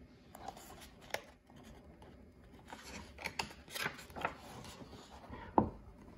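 Pages of a hardcover picture book being turned by hand: soft paper rustling with a few small clicks, then one sharper tap near the end.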